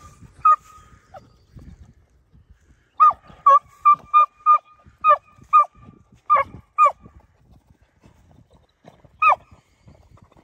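Beagle hounds giving short, pitched barks on a rabbit's scent trail: a couple at the start, a quick run of about ten from about three seconds in, and a single bark near the end. Barking with noses down like this is the hounds giving mouth on the track.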